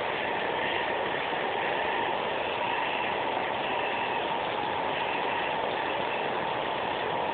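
Hair dryer running steadily, blowing water off and out of a Swiss Army knife to dry it.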